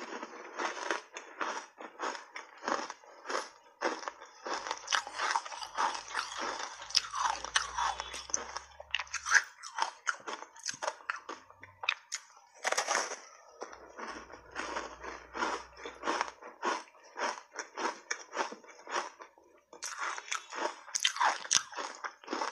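Close-miked biting and crunching of soft ice chunks coated in matcha powder: dense, rapid cracks as the ice is bitten and chewed, with a couple of brief pauses.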